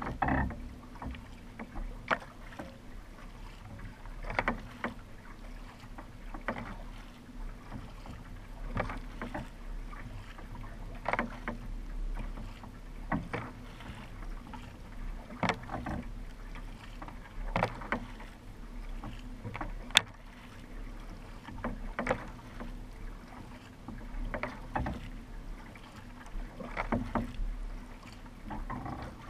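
Racing-kayak paddle strokes, the blade splashing into the water at an even rhythm of roughly one stroke a second, every other stroke a little louder. Under them runs a steady low rush.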